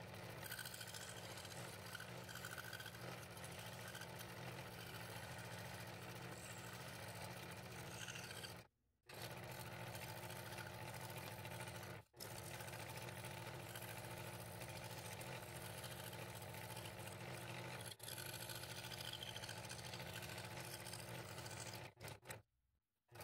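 Scroll saw running steadily, its fine blade cutting through thin, soft wood. The sound cuts out abruptly a few times, for a moment or two each.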